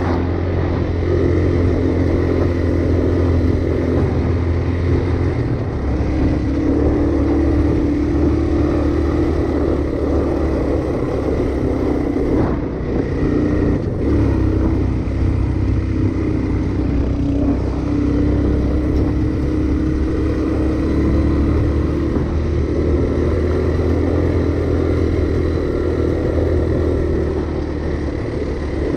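Honda Fat Cat trail bike's small single-cylinder four-stroke engine running steadily while riding, its pitch rising and falling slightly with the throttle a few times.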